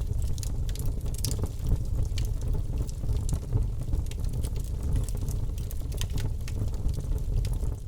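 Wood fire burning in a fireplace, crackling with many scattered small pops over a steady low rumble.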